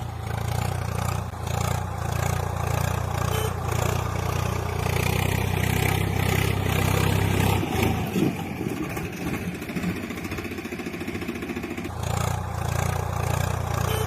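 Diesel engine of heavy machinery running with a steady low drone. The drone falls away about eight seconds in and comes back about four seconds later.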